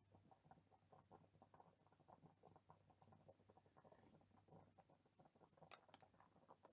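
Near silence with faint, scattered soft clicks and taps, and a few sharper ticks about three seconds in and again near the end.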